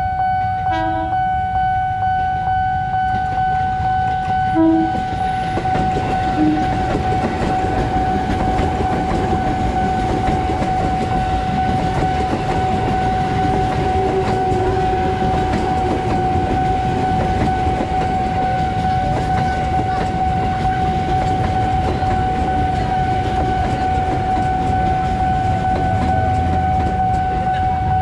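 KRL Commuter Line ex-JR 205 series electric train giving two short horn toots in the first five seconds, then passing close by with steady wheel-and-rail rumble and clatter. Under it a steady high warning tone sounds throughout and stops near the end, plausibly the level-crossing alarm.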